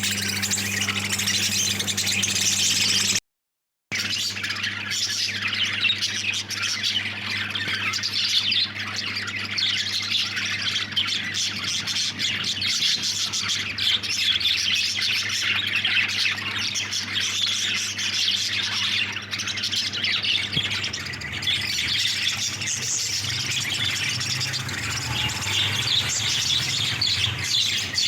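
A flock of caged lovebirds chattering and squawking continuously over a steady low hum, with a brief dropout about three seconds in.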